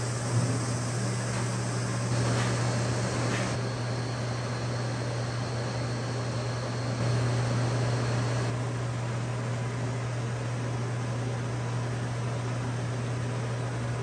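Steady low mechanical hum of a ventilation fan, with a faint high whine that stops about eight and a half seconds in. A few faint taps come about one to three seconds in.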